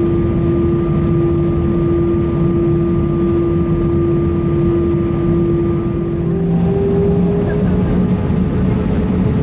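Airbus A320 cabin noise with the jet engines idling: a steady low rumble with a steady hum on top. About six seconds in, the hum's pitch steps up slightly and a lower tone joins it.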